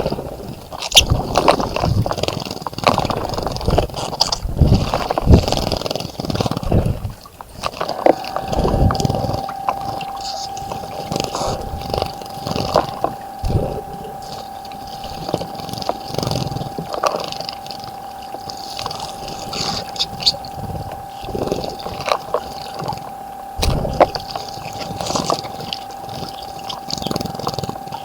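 Small birds splashing in a garden bird bath, in irregular bursts that are thickest in the first few seconds. From about eight seconds in, a steady high hum runs under the splashing.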